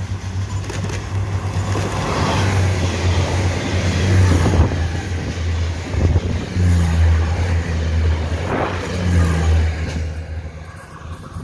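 Diesel Tze-Chiang express train passing close by: its diesel engines run with a low drone while the wheels rumble on the rails. The sound builds over the first couple of seconds, stays loud through the middle, and fades as the train moves away near the end.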